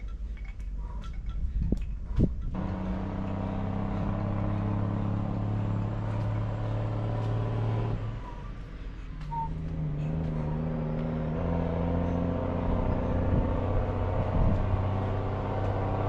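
An engine running with a steady low hum. It sets in abruptly about two and a half seconds in, after a few light clinks, drops away briefly about eight seconds in, then runs on at a slightly different pitch.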